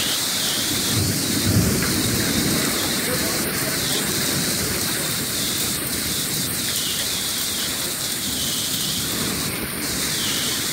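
Heavy rain and hail coming down steadily in a thunderstorm, with a low rumble of thunder from about one to three seconds in.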